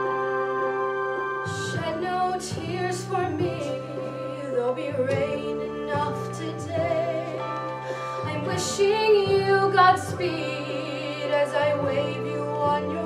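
A solo female voice singing a musical-theatre ballad with vibrato, over a sustained instrumental accompaniment. The accompaniment plays alone for about the first second and a half before the voice comes in.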